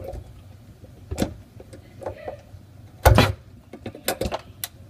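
Scattered knocks and clatters of hardware being worked loose while an old kitchen faucet is taken out from under the sink. One knock comes about a second in, a louder clatter about three seconds in, then a few quick clicks.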